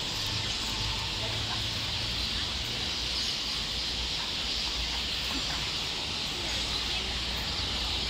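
Steady outdoor ambience: a continuous high-pitched animal chorus over a low rumble.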